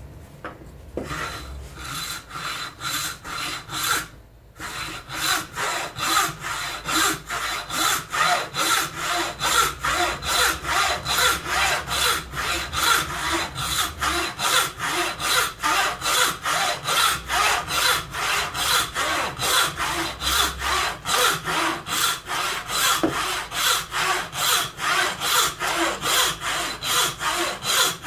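A wooden bow saw, its frame tensioned by a twisted rope, rips down the length of an upright board in fast, even push-pull strokes, about three a second. There is a short break about four seconds in.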